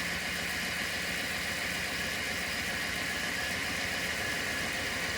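Chevy G20 van's 5.7-litre small-block V8 idling steadily, its distributor loosened so the ignition timing can be set by ear.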